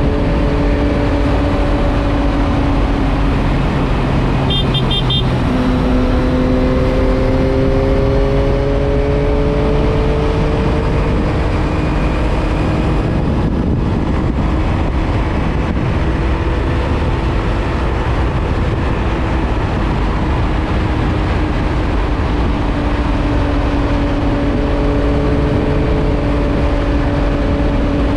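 Yamaha MT-09 motorcycle engine at cruising speed under heavy rushing wind noise on the microphone. The engine note climbs gently a few seconds in, then holds steady.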